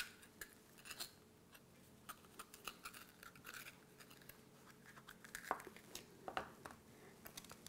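Faint, scattered scraping and snipping of a small kitchen knife cutting the white ribs and seeds out of a red bell pepper, with a few slightly louder clicks in the second half.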